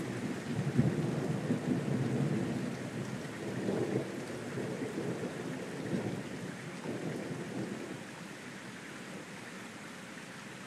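Thunder rolling and rumbling, swelling again about four and six seconds in and dying away about eight seconds in, over steady rain.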